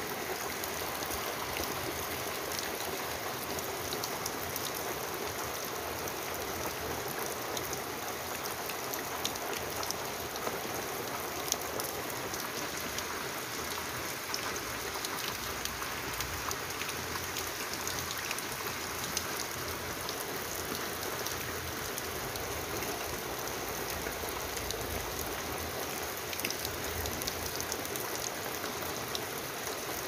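Steady rain falling, an even hiss with many small drop clicks scattered through it.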